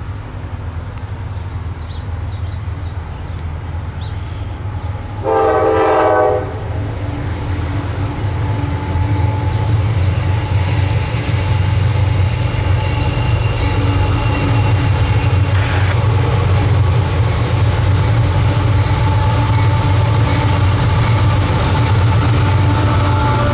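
Diesel locomotives of a CSX intermodal freight train approaching: a low engine rumble that grows steadily louder, with one short horn blast about five seconds in. The lead units' engine drone is loudest as they pass near the end.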